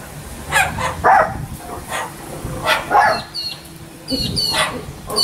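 Sulphur-crested cockatoo mimicking a dog: several short, rough, woof-like barks, with a few brief high squeaks in between.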